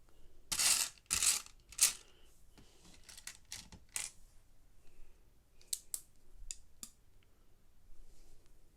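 Small plastic Lego pieces clattering and clicking as they are handled, with three louder rattles in the first two seconds and scattered sharp clicks after.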